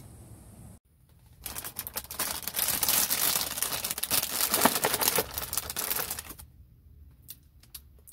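Plastic bag crinkling as a hand rummages through it inside a cardboard cereal box, starting about a second and a half in and lasting about five seconds, then a few light clicks.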